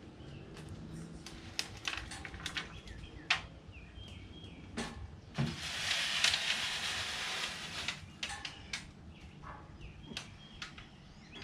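Wood fire crackling in an Ooni Pro oven with scattered pops and snaps. A steady hiss starts about five seconds in and lasts a couple of seconds.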